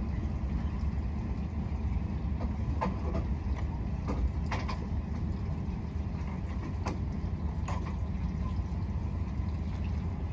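Beneteau motorboat's engine running steadily at low speed, a low rumble, with a few light clicks about midway.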